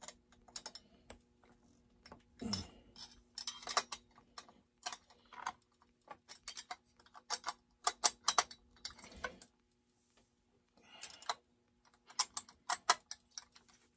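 Irregular clicks and taps of small hand tools and plastic and metal parts being picked up, set down and fitted onto a chainsaw's powerhead on a workbench, some in quick clusters. A faint steady hum runs underneath.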